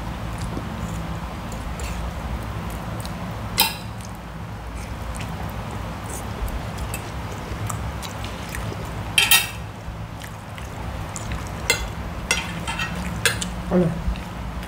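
Eating sounds: a spoon and fork clicking against plates, and a few short slurps of khanom jeen rice noodles in coconut curry.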